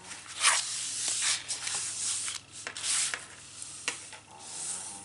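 Cardstock and paper rustling and sliding in a series of short, hissy strokes as a scrapbook page is handled and trimmed.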